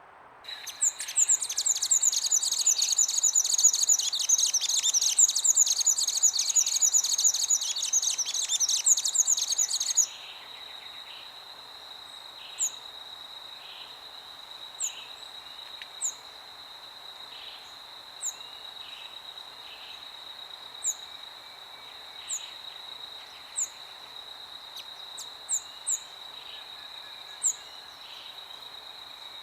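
Songbirds singing in a dense, loud chattering chorus that stops abruptly about ten seconds in. After that comes a steady high-pitched insect drone, with single short, sharp bird chirps every second or two, over a faint background of wind.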